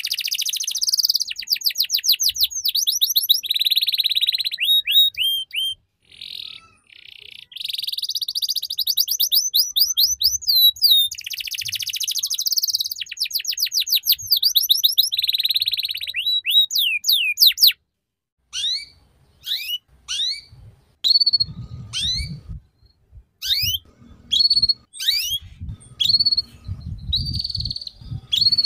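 Canary singing in fast chattering trills ('ngeriwik' style), long runs of quick rising and falling chirps with a short pause about six seconds in. The trilling cuts off suddenly about two-thirds through and gives way to spaced single sharp chirps over a low rumble.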